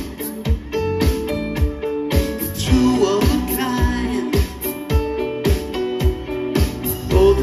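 Live band playing a pop-rock song: drums keeping a steady beat under electric bass and keyboards, with singing.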